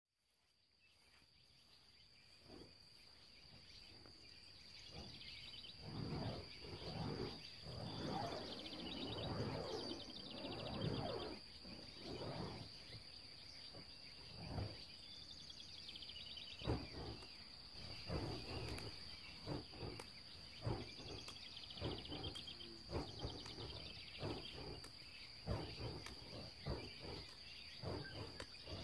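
Rural ambience: a steady high-pitched insect drone with birds chirping, fading in over the first few seconds. Over it come irregular low whooshes and soft thuds, loudest from about six to twelve seconds in.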